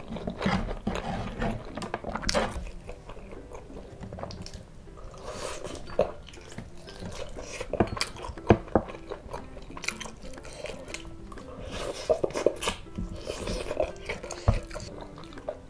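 Close-miked chewing and mouth clicks of a person eating rice and fried food by hand, with the light tap and scrape of fingers gathering rice on a wooden tray. Sharp clicks come irregularly throughout.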